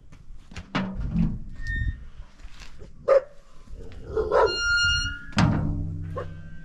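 Rusty sheet-metal door being unlatched and pulled open, with shuffling steps: a sharp knock about three seconds in, then a high hinge squeal lasting about a second, followed by a sudden low drawn-out sound.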